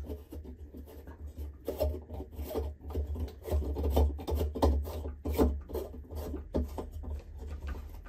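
Light-socket-to-outlet adapter being screwed by hand into a ceiling light bulb socket: repeated rubbing and scraping of the screw threads as it is twisted in, about two scrapes a second.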